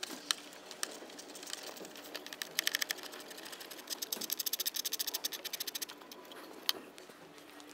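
Ratchet wrench clicking in quick runs of rapid, even ticks as a small bolt is turned, with a single sharper metal click near the end.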